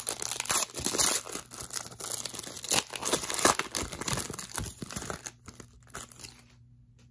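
A Donruss Optic basketball card pack's wrapper being torn open and crinkled by hand, a dense run of tearing and crackling that stops about five seconds in.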